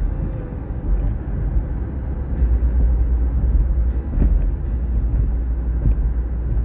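Car driving, heard from inside the cabin: a steady low rumble of engine and road.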